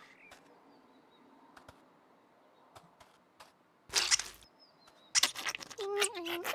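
Scattered soft clicks, a short noisy burst about four seconds in, then wordless squeaky vocal sounds from a puppet character, rising and falling in pitch.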